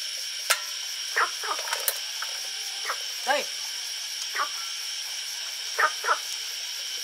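Short, high animal calls repeating about once a second or in pairs, over a steady high-pitched hum; two sharp clicks in the first two seconds.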